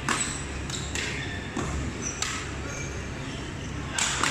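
Badminton hall sounds: a few sharp cracks of rackets striking shuttlecocks, the loudest right at the start, with brief high squeaks of shoes on the court floor over a steady low hum of the large hall.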